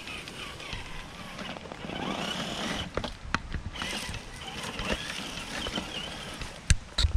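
Traxxas TRX-4 RC crawler driving over rocks: its electric drivetrain running, with a few sharp knocks of the truck against rock, the loudest pair near the end.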